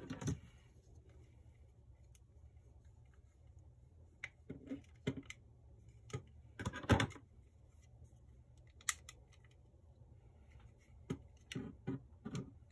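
Plastic parts of a Zoids HMM Death Stinger model kit being handled, fitted and snapped together on a desk: scattered clicks and knocks, the loudest about seven seconds in, with a quick run of clicks near the end.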